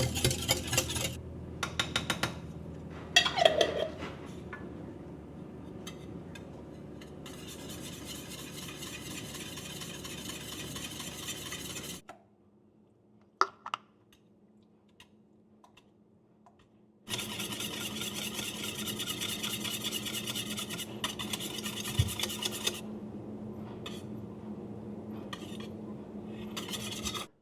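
Kitchen cooking sounds: utensils clinking and scraping against pots and dishes, with several sharp clinks, one of them ringing briefly. A quiet stretch in the middle holds only a couple of clicks.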